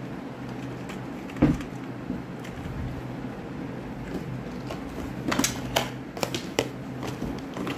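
Knife cutting dry bar soap into flakes that fall onto a steel plate, with a single thump about one and a half seconds in and a quick run of sharp clicks and taps near the end, over a steady low hum.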